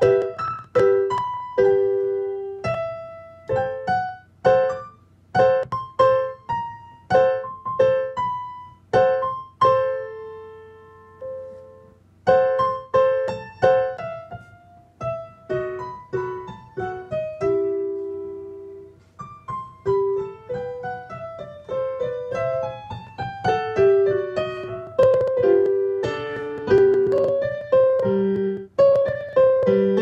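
Sampled acoustic piano (Sonivox Eighty Eight software instrument) played from an M-Audio Hammer 88 keyboard and heard through a studio monitor speaker: single notes and short melodic phrases, each note struck sharply and left to decay. The owner complains that this setup sounds distorted and delayed.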